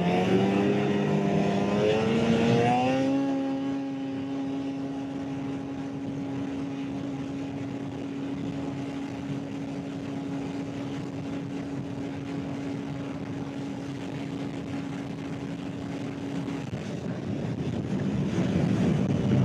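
Arctic Cat Catalyst 858 snowmobile's two-stroke twin engine under full throttle on a speed run: its pitch climbs over the first three seconds, then holds steady under wind and track noise. Near the end the engine note drops away as the throttle comes off.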